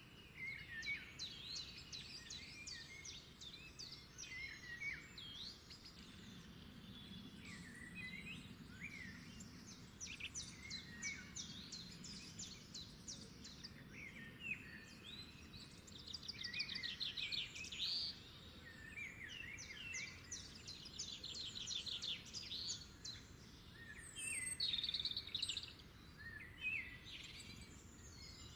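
Several small birds singing and calling at once: quick trills, chirps and short rising and falling notes overlapping throughout, over a faint low steady rush.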